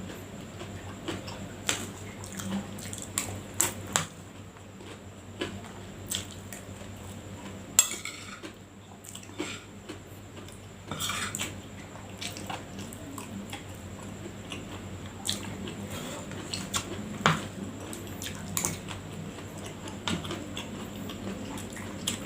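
Spoon clinking and scraping against a plate while eating fried rice, in scattered sharp clicks at irregular intervals.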